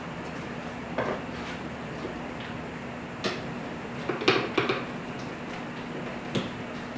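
A few short knocks and clinks as the wall cleat and its center screw are handled and set against the wall, with a small cluster of clatter in the middle, over a steady low hum.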